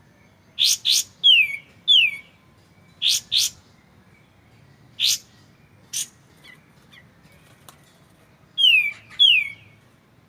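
Kapas tembak (katem) bird song: clear, sharp notes in pairs, short piercing calls and falling whistles, separated by pauses of a second or more.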